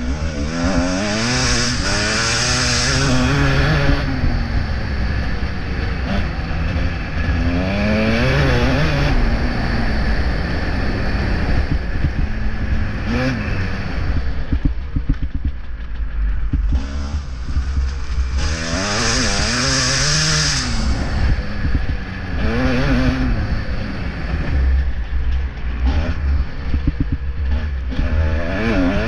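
Motocross bike engine revving hard and easing off over and over as it is ridden around the track, about six strong surges, with a heavy low rumble throughout.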